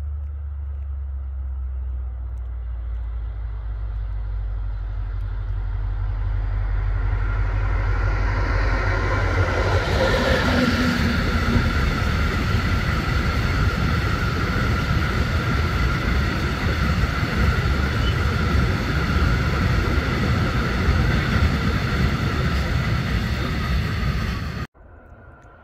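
Freight train of covered hopper wagons approaching and passing close by: a rumble that builds over the first ten seconds, then the steady rolling rumble and clatter of the wagons going past, cut off suddenly near the end.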